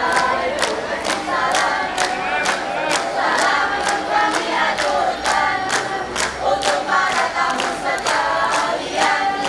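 A group of young voices singing and chanting together in unison, over a sharp, even beat about twice a second.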